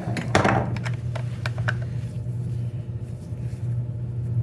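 A few sharp metal clicks and clanks of a crescent wrench working the chainsaw's bar nuts, bunched in the first two seconds with the loudest about half a second in, over a steady low hum.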